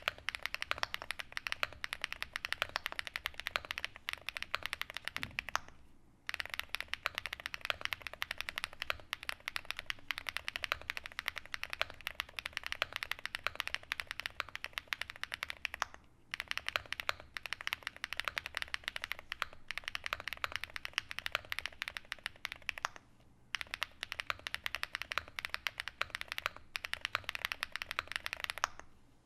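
Continuous fast typing on a custom mechanical keyboard with SW x Haimu MP Tactile switches, an FR4 plate and DMK Rubber keycaps on an Angrymiao AM Relic 80: a dense run of keystroke clicks, broken by short pauses about 6, 16 and 23 seconds in.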